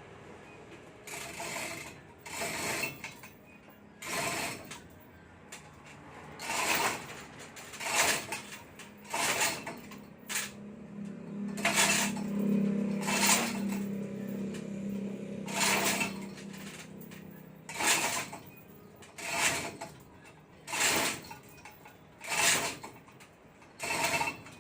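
Hand tool working on metal engine parts: short clicking, ratchet-like strokes repeated about once every second and a half. A steady low hum joins in for a few seconds in the middle.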